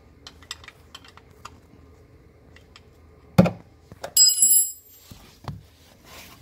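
Small clicks from a ratcheting wrench on a car's oil drain plug as it is loosened. Then a knock and a loud metallic clang that rings briefly like a bell, with another knock about a second later.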